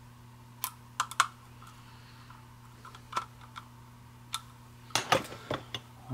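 Scattered small metallic clicks and taps as a screwdriver snugs down the little nuts on the rear studs of a tractor fuel gauge, with a quicker run of clicks near the end as the gauge is handled.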